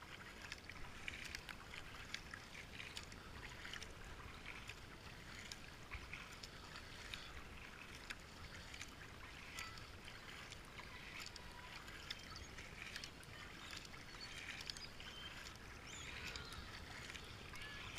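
Double-bladed kayak paddle stroking through calm river water: quiet, irregular splashes and drips as the blades dip in and lift out, over a steady watery hiss.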